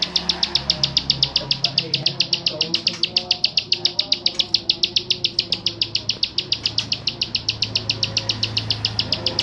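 Plain prinia (prenjak sawah) singing a rapid-fire string of sharp, identical high notes, about nine a second, without a pause. This is the machine-gun 'ngebren' delivery that keepers prize. A faint low hum lies underneath.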